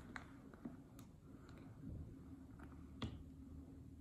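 Faint handling noises of a leather handbag being turned over in the hands: a few light clicks and taps from its hardware and leather, the clearest about three seconds in.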